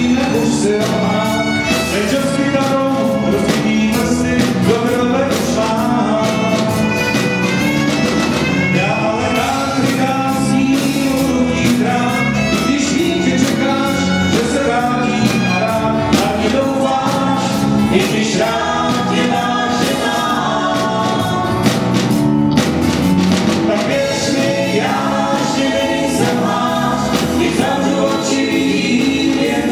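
Live folk band playing a song: violin, acoustic guitar and electric bass, with singing over the band.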